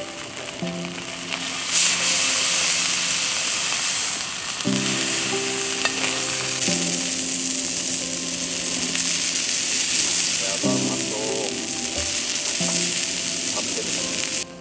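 A large piece of chicken searing in a hot pan, sizzling loudly; the sizzle jumps up about two seconds in and holds steady. It is being seared on every side to seal in the juices. Background music plays under it.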